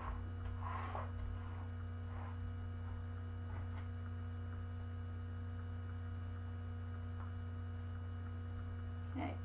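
Steady electrical hum throughout. A few faint soft scrapes of a spatula spreading cake batter in a pan come in the first few seconds.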